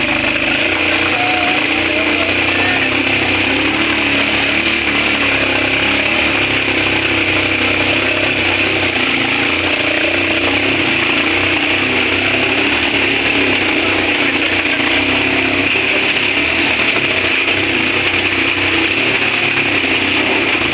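Small motorcycle engine running steadily under way, its pitch holding level, with road and wind noise.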